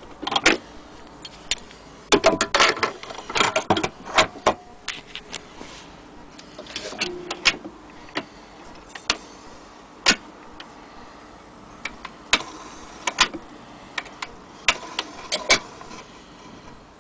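Irregular clicks and knocks from an HMV Model 102 portable gramophone being handled, with a dense run of them about two to four seconds in and single sharp clicks after.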